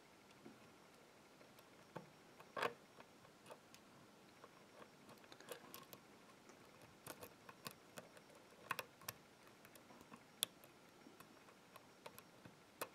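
Faint, irregular clicks and ticks of a lock pick and tension wrench working the pins of a padlock's Euro cylinder, with a few louder clicks among them.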